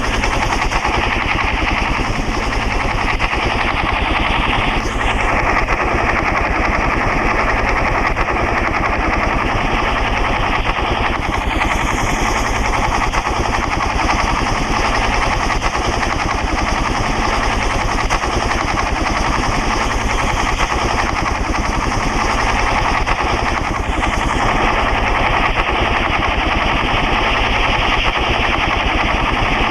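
Helicopter rotor blades beating in a rapid, steady chop, loud and unbroken throughout.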